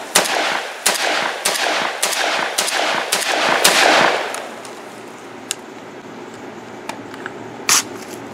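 Molot VEPR-12 semi-automatic 12-gauge shotgun firing Federal #8 birdshot target loads: a rapid string of shots, about two a second, for the first four seconds, each ringing out with echo. After that come a few faint clicks and one short sharp clack near the end.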